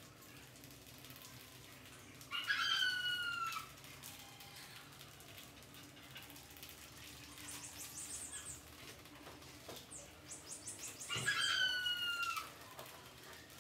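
Two loud animal calls, each a bit over a second long and sliding slightly down in pitch, about nine seconds apart. Fainter quick, high chirps come between them.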